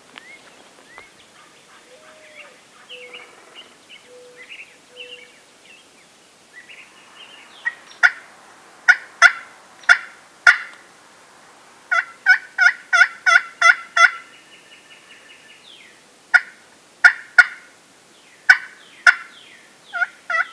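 Wooden turkey box call worked by hand, making runs of sharp, raspy hen-turkey yelps, several to a run at about three or four a second, starting about eight seconds in. Faint bird chirps come before.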